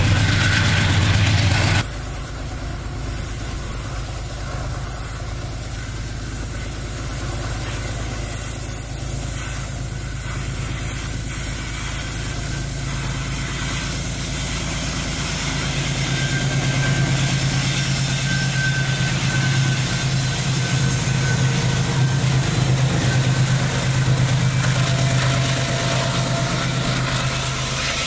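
Diesel freight locomotive engines running with a steady low drone. The sound shifts abruptly about two seconds in, and the drone grows stronger from about halfway through.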